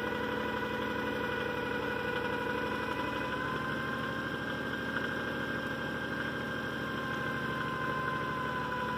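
Compact farm tractor's engine running steadily while it carries a roof truss on its front-loader crane, with a steady high whine over the engine.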